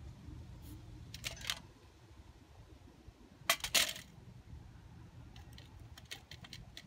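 Small metallic clicks and scrapes of a water brush working paint in the pans of a metal watercolour tin: a short cluster about a second in, a louder one around three and a half seconds, then a few light ticks near the end.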